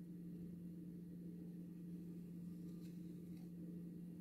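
Faint steady low hum, room tone with no other clear sound.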